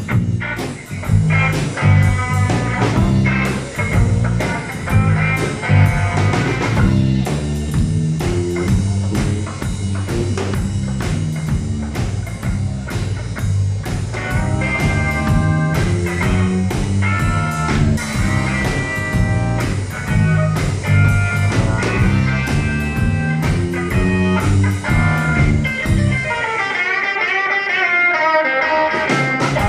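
A live rock trio plays an instrumental break: a guitar solo over bass and drums in a bluesy swing. Near the end the bass and drums drop out, leaving the guitar playing alone.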